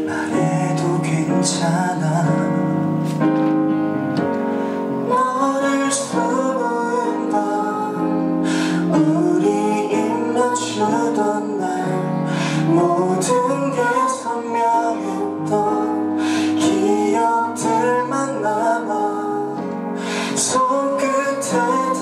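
Live duet of a slow Korean ballad sung over instrumental accompaniment: a man sings, and later a woman's voice joins him and the two sing together.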